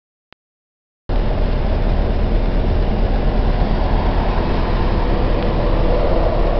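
Steady road, wind and engine noise inside a Packard car cruising at highway speed, a constant rumble with no change in pitch. It cuts in suddenly about a second in, after a brief silence.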